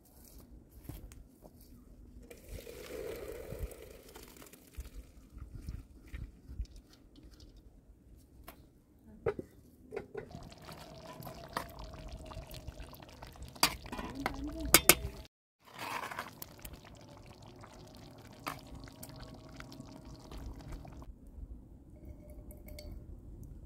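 Kitchen handling sounds of pots and utensils: a metal spoon clinking and scraping in a pot of chicken stew, loudest as a few sharp clinks about two-thirds of the way in. Near the end, liquid is poured from a small glass into an empty nonstick pot.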